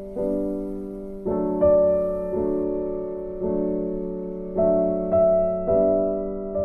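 Slow background piano music: chords struck about once a second, each left to ring and fade.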